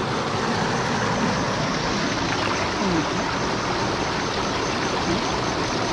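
Water of a shallow stream running steadily.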